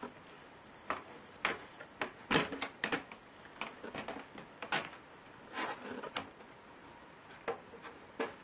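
Irregular clicks, taps and light knocks of small hard laptop parts being handled, in uneven clusters with short pauses between.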